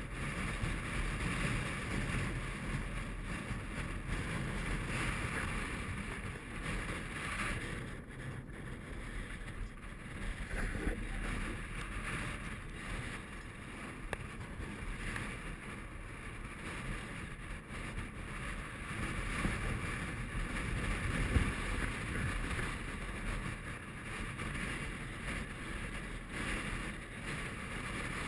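Strong mountain wind blowing across the camera's microphone, a continuous gusting rush with low rumble. One brief thump about three quarters of the way through.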